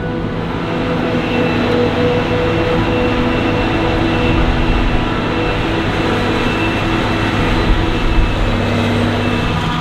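Heavy diesel farm machinery running steadily under load: a constant drone with several steady tones layered over a low rumble.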